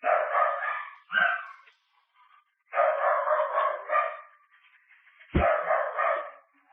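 A dog barking repeatedly, in four short runs with brief pauses between them.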